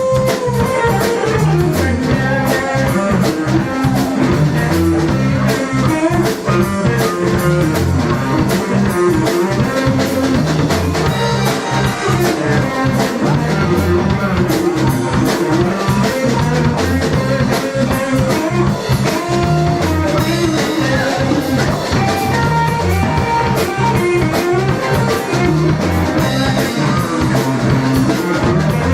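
Live blues-rock band playing an instrumental break: electric lead guitar over bass guitar and a drum kit keeping a steady beat, with no vocals.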